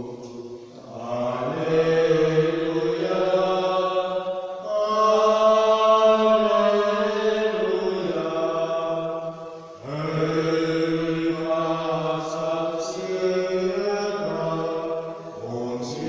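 A man's solo voice chanting a liturgical text in long held notes, in phrases of about five seconds with short breaks between them.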